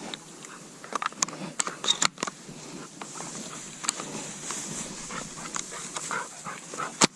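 Pointing bird dog panting in the field, with scattered rustling and clicking footsteps and one sharp crack near the end.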